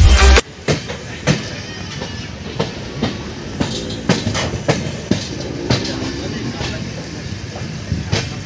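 Indian Railways passenger coach running into a station, its wheels clattering over rail joints and points in irregular clicks and knocks over a steady rolling rumble, heard from an open coach doorway.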